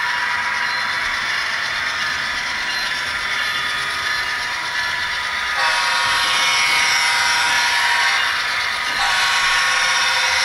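Sound decoders in HO scale diesel locomotives, among them the approaching BNSF ES44C4 with a GE GEVO-12 sound file, play a steady diesel engine sound through their tiny speakers, which carry no deep bass. The sound shifts abruptly about five and a half seconds in and again near the end.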